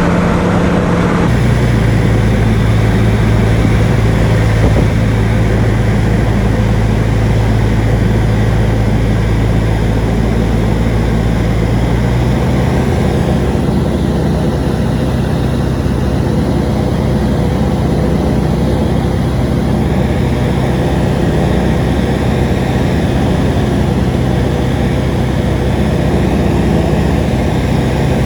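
Light aircraft engine and propeller running with a steady drone. Its tone shifts slightly about a second in and again about twelve seconds in.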